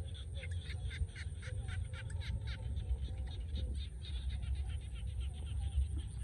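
A chorus of short, rapidly repeated animal calls, about four or five a second, growing fainter toward the end, over a steady low rumble.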